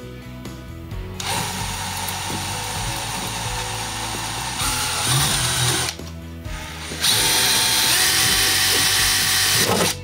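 Cordless drill with a 1/8-inch bit running in two spells, drilling out a machined rivet that holds a window latch: a steady whine from about a second in, a brief stop, then a louder run near the end.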